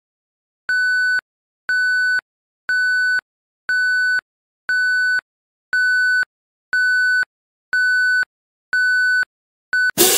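Quiz countdown timer beeping once a second, with nine steady electronic beeps and a tenth cut short. About ten seconds in, a loud cymbal crash marks the end of the countdown and the reveal of the answer, and it rings out.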